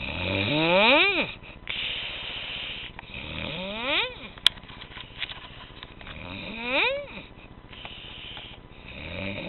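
Squeaky snoring from someone asleep: each breath rises into a high, squeaky whistle, about every three seconds, with hissy breathing between. A single sharp click comes about halfway through.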